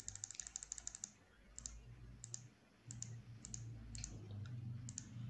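Computer keyboard and mouse clicks, faint: a quick run of about ten clicks a second for the first second, then scattered single and paired clicks.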